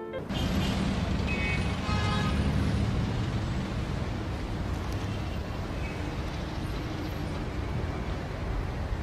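Steady city traffic noise, a low rumble of distant vehicles.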